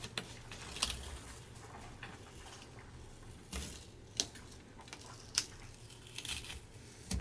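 Parchment paper and painter's tape being peeled off cured sealant on a rubber washing-machine door seal: faint crinkling, with a handful of short clicks and rustles scattered through.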